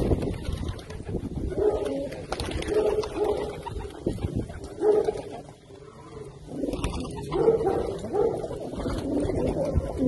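A flock of homing pigeons cooing, several birds' overlapping coos repeating every second or so, with a short lull a little past halfway.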